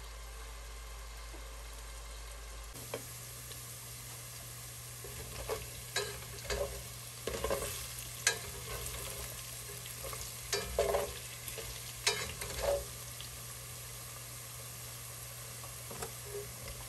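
Potato chunks frying in oil in a stainless steel pot, a steady sizzle. From about five seconds in, a plastic slotted spoon stirs them, knocking and scraping against the pot again and again for several seconds, with a few more knocks near the end.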